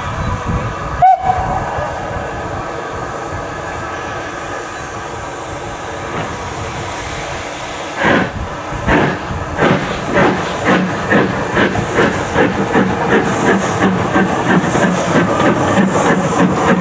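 LMS 4F 0-6-0 steam locomotive with a steady hiss while standing, a short whistle about a second in, then starting away at about eight seconds: chimney exhaust beats, slow at first and quickening to about three a second.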